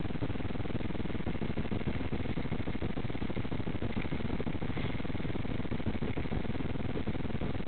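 Steady low rumble of vehicle engine and road noise, even throughout with no distinct events.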